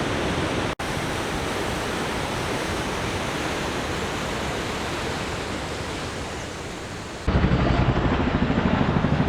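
River Tees rushing over rocky falls, a steady, full rush of water, broken by a split-second dropout a moment in. About seven seconds in it switches abruptly to a louder, fluttering low rumble.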